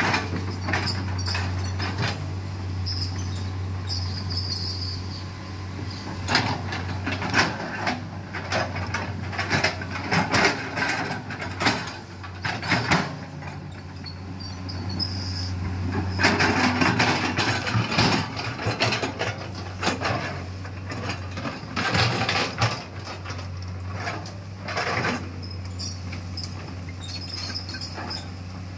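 Komatsu PC210LC crawler excavator's diesel engine running steadily under load, with irregular clanks, knocks and scraping as the bucket digs soil and the machine pushes through brush; the working noise swells for a couple of seconds about halfway through.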